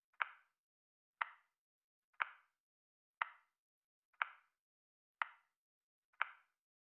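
Countdown timer ticking: one short, dry tick each second, keeping pace with the seconds counting down, seven ticks in all.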